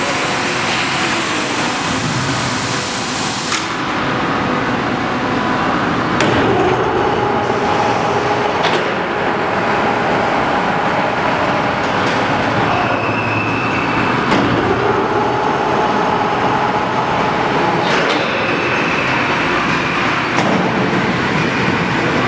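Plasma torch of a CNC pipe cutting and beveling machine hissing as it cuts a large-diameter steel pipe; the hiss cuts off abruptly about three and a half seconds in. A steady machine noise follows, with a few clicks.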